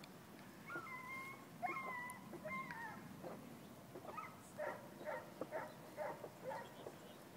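A dog whining: three drawn-out high whines, then a run of short whimpers at about three a second.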